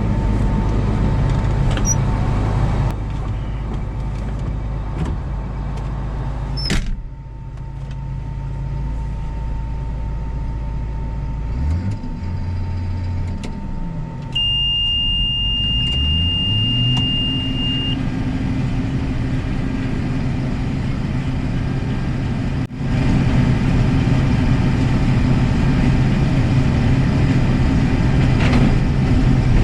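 A farm vehicle's engine running, slowing and then speeding up, with a single steady high-pitched electronic beep lasting a few seconds in the middle; it then runs steadily at the higher speed.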